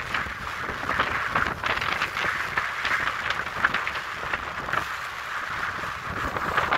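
Wind and sea noise under sail: a steady rush of choppy water with many small crackling splashes, mixed with wind on the microphone.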